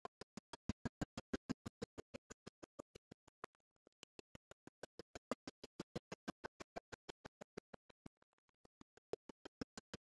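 Toy crawler robot's motor and leg gears clicking rapidly and evenly, about six clicks a second, dying away briefly twice.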